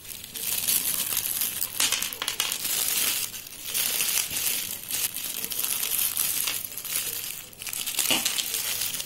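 Thin plastic bag crinkling as hands fold back and smooth its sides around a heap of dry grey clay lumps, the lumps shifting inside. It comes in bursts of a second or two with short lulls and stops suddenly at the end.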